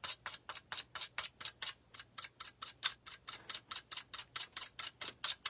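Scissor blade scraping quickly and rhythmically along a soaked grouse feather quill on a walnut board, about six strokes a second, stripping the pith out of the quill.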